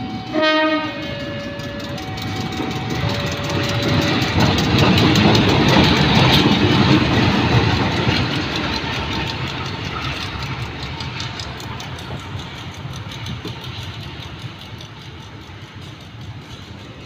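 A level-crossing warning chime of stepped electronic tones, cut across about half a second in by a short blast of a diesel locomotive's horn. Then a KAI diesel-electric locomotive runs past, its engine and wheels on the rails swelling to a peak about six seconds in and fading away.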